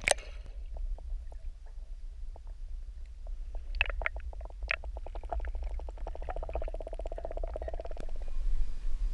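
Muffled underwater sound picked up by a submerged camera: a steady low rumble with scattered clicks. A fast rattling pulse starts about five seconds in and stops shortly before the end.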